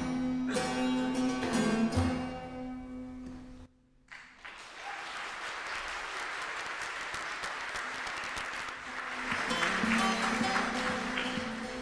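Strummed bağlama (long-necked Turkish lute) music that cuts off abruptly about a third of the way in, followed by an audience applauding. Near the end, plucked bağlama notes start again while the applause is still going.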